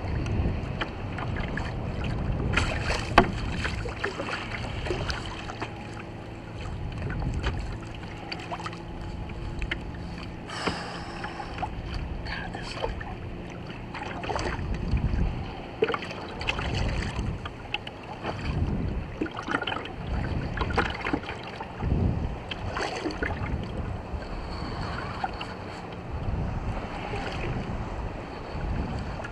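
Water slapping against a kayak's hull and wind on the microphone, with scattered knocks and clicks throughout. A low steady hum runs for several seconds in the first half.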